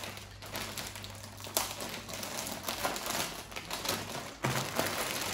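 Clear plastic packaging bag crinkling and rustling as it is handled and opened around a plush onesie, with irregular crackles and a few louder ones.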